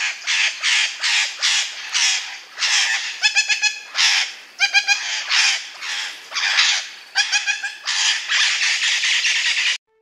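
A parrot squawking over and over in harsh calls, about three a second, with a few quicker chattering runs between them. It cuts off abruptly near the end.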